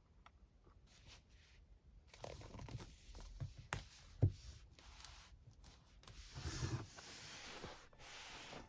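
Packaging being handled and torn open: rustling and tearing from about two seconds in, with two sharp taps in the middle.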